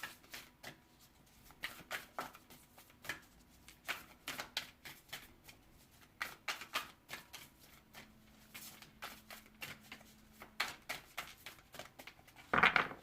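A deck of oracle cards being shuffled by hand: quick, irregular card-on-card flicks and slides, with a louder rustle near the end.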